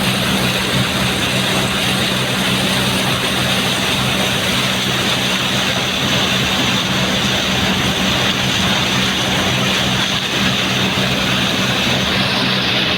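Combine harvester running steadily: a loud, even engine drone with a broad mechanical rush over it.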